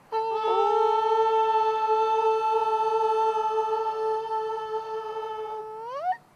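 A voice singing one long held note, which glides sharply upward just before it cuts off.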